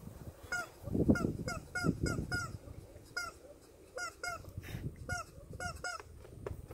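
Rubber chicken squeaky toy being chewed by a horse, giving short honking squeaks over and over in quick runs, with a brief pause partway through. A low rumble sits underneath in the first half.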